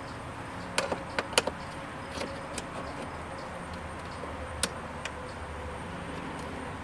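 Small sharp clicks and taps of a Phillips screwdriver and a small screw against the plastic radio bezel and dash trim: a quick cluster of several about a second in, a few single ones after, and a sharper click about two-thirds of the way through.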